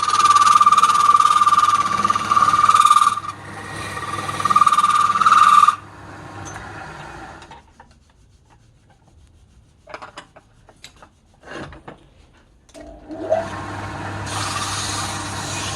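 Wood lathe: a tool or abrasive rubbing against the spinning wood, with a steady high squeal over the motor hum. About six seconds in it stops and the lathe winds down. A few clicks and knocks follow, then near the end the motor spins up again with a rising whine and the rubbing resumes.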